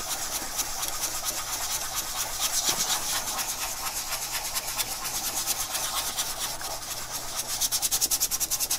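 Toothbrush bristles scrubbing a thin sheet-metal RF shield in rapid back-and-forth strokes, growing quicker and louder near the end, to clean off moisture staining.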